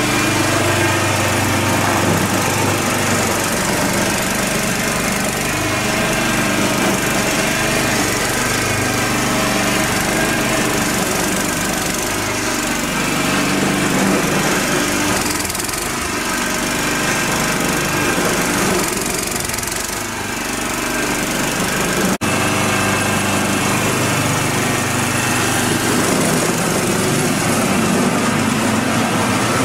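Small petrol engine of a MARKO walk-behind tiller running steadily under load, driving a belt-driven snow-thrower attachment that is throwing snow. The sound briefly cuts out about two-thirds of the way through.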